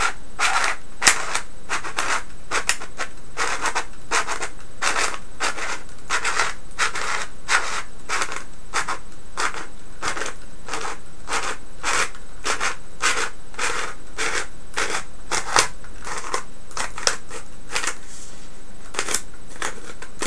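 Jobo film loader's wheel being turned by hand as 120 film winds onto a Jobo reel, clicking evenly about twice a second. The clicks stop a little before the end, when the roll is fully wound.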